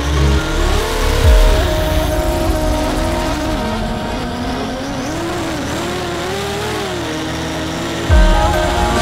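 Mini FPV quadcopter's brushless motors and propellers whining, the pitch rising and falling with the throttle. There is a low thud about a second in and a louder one near the end.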